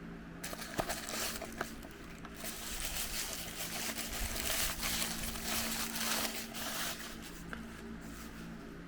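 Plastic wrapper crinkling and rustling for several seconds as a toy is unwrapped, with a few sharp clicks, over a faint steady hum.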